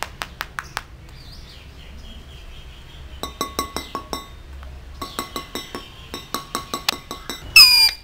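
Indian ringneck parakeet's beak tapping on hard objects in quick runs of sharp, lightly ringing clinks, about five in the first second and longer runs later. Near the end comes one loud, brief downward-gliding screech.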